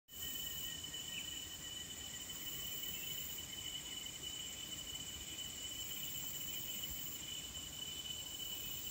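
Steady, high-pitched chorus of insects, an unbroken trill with a second, higher band above it, which cuts off suddenly at the end.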